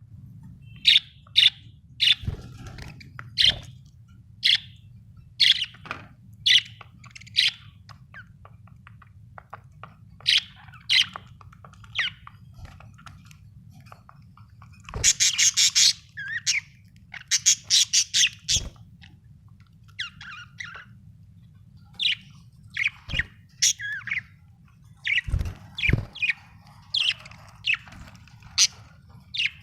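Budgerigars chirping: a string of short, sharp calls, breaking into a burst of rapid chattering about halfway through. A faint low hum runs underneath, with a few soft thumps.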